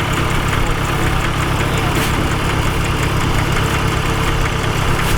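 Kubota DC-70 Plus combine harvester's diesel engine running steadily.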